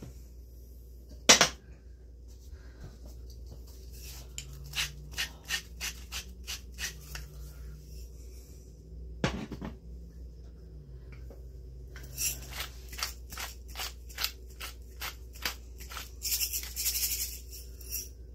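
Kitchen utensil clicking and knocking against a bowl while salad is stirred, in runs of quick, evenly spaced clicks, about three a second, with two louder knocks, one about a second in and one near the middle.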